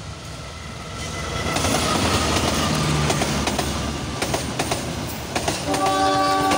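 Passenger train hauled by a KAI diesel locomotive passing close by, its running noise swelling from about a second in. From about four seconds in the carriage wheels clack rhythmically over the rail joints.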